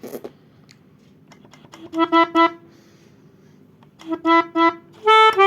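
Melodica (pianika) playing a telolet bus-horn tune: two quick groups of three short notes on the same pitch, then a higher, longer note near the end.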